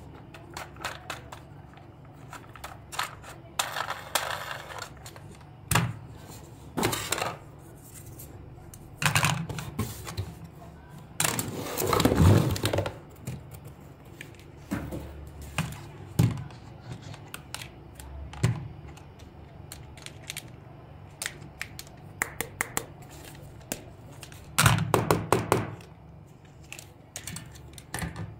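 Hard plastic toy parts being handled: a frog-on-skateboard toy and its frog figure clicking, knocking and scraping. A longer scraping rustle comes about twelve seconds in, and a quick run of clicks near the end.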